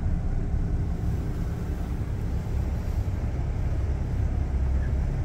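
Low, steady rumble of a 1998 Dodge Ram 2500 pickup driving slowly, heard from inside the cab.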